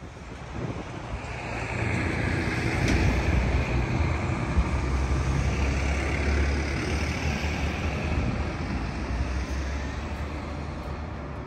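A road vehicle passing close by: a low engine and tyre rumble that builds over the first couple of seconds, is loudest in the middle, and slowly fades toward the end.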